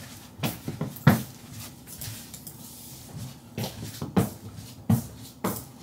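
Footsteps of a person walking away across a hard floor: a string of soft knocks, irregular but often about half a second apart.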